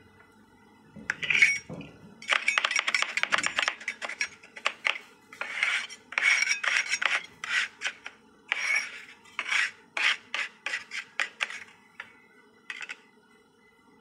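Two steel spatulas chopping and scraping cookie and brownie pieces on a stainless-steel ice-cream-roll plate: rapid clattering strikes in runs with short pauses, starting about a second in, and a last short run near the end.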